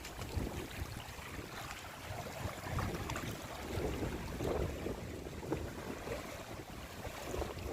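Wind buffeting the microphone, an uneven low rumble that rises and falls.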